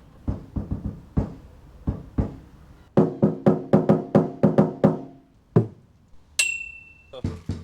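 Percussive music: a beat of short, sharp hits, with pitched notes in the middle and a single high ringing tone near the end.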